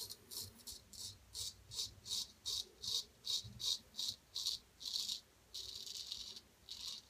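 Gold Dollar 800 straight razor scraping through lathered whiskers on the neck in quick short strokes, about three a second, then one longer drawn-out stroke near the end.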